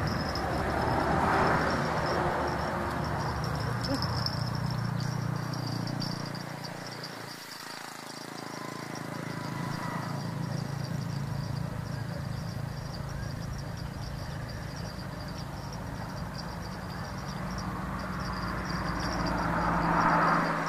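Outdoor ambience: a rushing noise that swells and fades, dipping about seven seconds in, over a steady high-pitched insect buzz.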